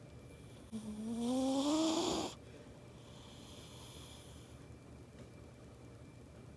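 Domestic cat snoring in its sleep: one loud snore that rises in pitch, starting about a second in and cutting off sharply just past two seconds, followed by a softer airy breath around three to four and a half seconds in.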